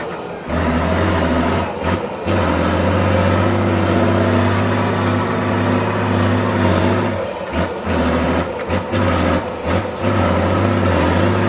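Heavy off-road trial truck's engine running steadily, a deep drone with a few brief dips in level.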